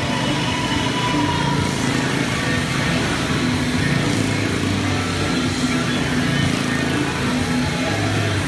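Vintage motorcycle engine running hard as the bike circles the vertical wall of a wooden motordrome, its pitch rising and falling as it goes round.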